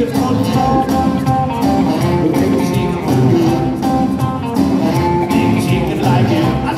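A rockabilly band plays live with guitar, upright bass, drums, piano and saxophones. This stretch is instrumental, with the guitar to the fore.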